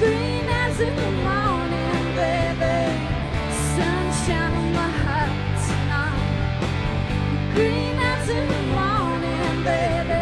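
Live rock band playing an instrumental break: a lead melody that bends and slides in pitch over steady bass and drums, with cymbal crashes now and then.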